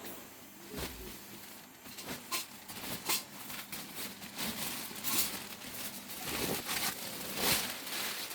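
Irregular rustling and crinkling with scattered light knocks and clicks, as of things being handled.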